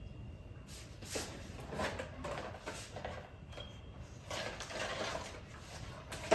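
Soft, irregular rustling and handling sounds of groceries and their wrapping being moved and arranged, ending in a sharp knock as something is set down.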